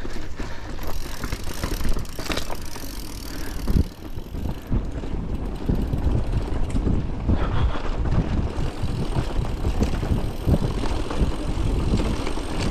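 Bicycle rattling over a stone-paved path while being ridden, a dense, irregular run of knocks and clatter from the wheels and frame as they hit the stones.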